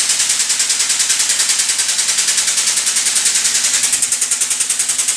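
Motorcycle lift raising a Harley-Davidson Street Glide: its pump runs with a steady, rapid, even pulsing, about ten beats a second, with a hissing edge.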